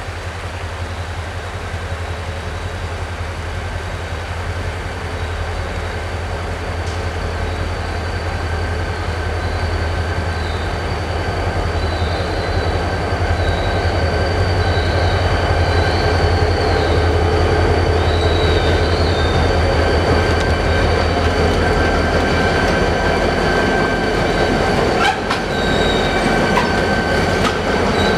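Norfolk Southern diesel locomotives approaching and rolling onto a wooden trestle, the engines' low drone growing steadily louder. High, wavering wheel squeals come in about eleven seconds in and recur near the end.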